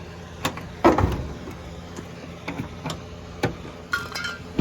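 Metal clunks and knocks from working on an old pickup truck's steel door, the loudest a heavy thump about a second in, over a steady low hum. Short squeaky sounds come near the end.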